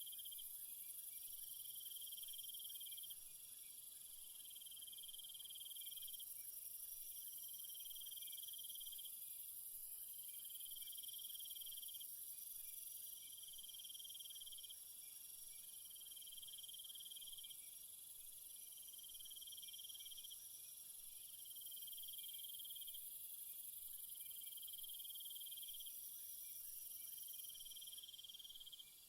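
Insects chirping: high trills in regular bursts of about a second and a half with short gaps, and a faint fast ticking above them.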